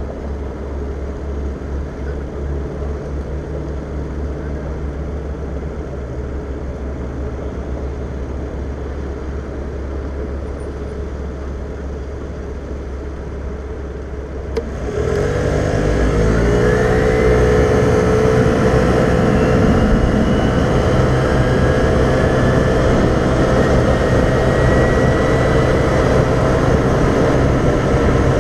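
Vespa scooter's single-cylinder engine idling with a steady low hum while stopped. About halfway through it gets suddenly louder as the scooter pulls away, the engine note rising as it accelerates. It then runs steadily at speed with road and wind noise.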